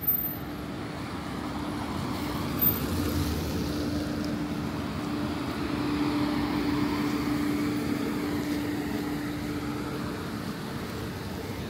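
Engine noise of a passing vehicle with a steady hum, swelling to its loudest about six seconds in and then fading. Two brief sharp clicks come in the first few seconds.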